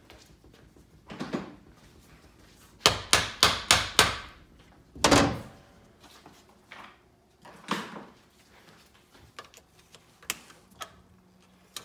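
Sharp metal-on-metal knocks and clunks of tools being handled on a steel workbench: a quick run of five knocks about three seconds in, the loudest thud about five seconds in, another near eight seconds, then lighter ticks.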